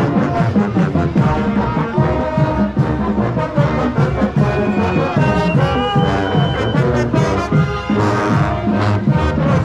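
Marching band playing, brass to the fore, with held, changing notes and a steady loudness.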